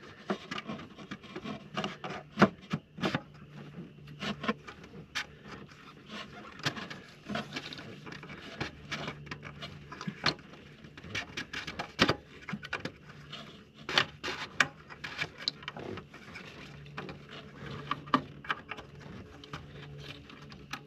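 A new fuel filter being fitted by hand into its housing under the hood of a 6.7L Powerstroke diesel: scattered clicks, taps and knocks of plastic parts and fuel-line fittings, with rubbing and scraping in between.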